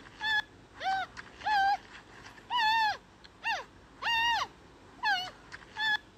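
Giant panda calling over and over: about eight short, high-pitched calls, each rising then falling in pitch, spaced roughly half a second to a second apart.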